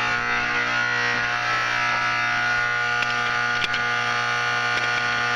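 Faraday Vibratone 350-B1 vibrating fire-alarm horn sounding continuously on 6-volt AC, a steady harsh mains-rate buzz.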